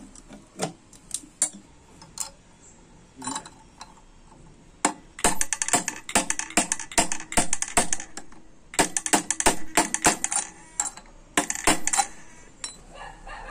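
Hammer striking a steel box spanner set on a nut in a TVS 50 moped engine's case. A few scattered metallic taps, then from about five seconds in, quick runs of sharp metal-on-metal blows, several a second, with a short high ring.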